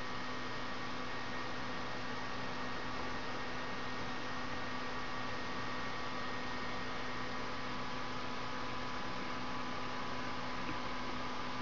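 Steady electrical hum with an even hiss and a few faint steady whine tones, unchanging throughout.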